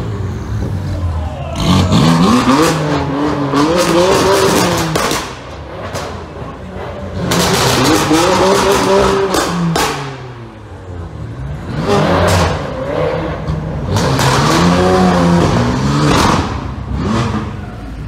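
Sports car engines revving hard and dropping back, four times in turn, each rise in pitch lasting a few seconds with a short lull between.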